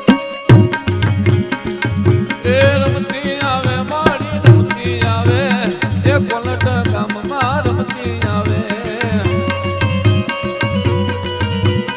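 Gujarati devotional folk music played live: a steady, repeating drum beat, with a melody line that bends and wavers in pitch carried over it from about two seconds in until a few seconds before the end.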